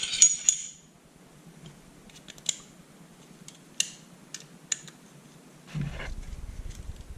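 Field-stripped pistol being reassembled: a short metallic scrape of parts sliding together at the start, then scattered light metal clicks, with low handling rumble near the end.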